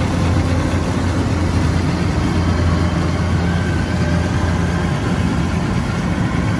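Kubota combine harvester running steadily while reaping rice: a steady low engine hum under an even mechanical noise.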